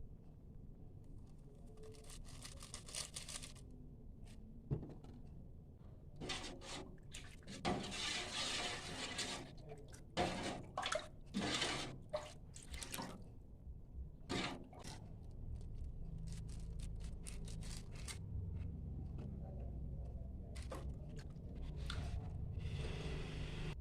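Kitchen water sounds: water splashing and pouring in several bursts, with sharp clinks in between and a low steady hum in the second half.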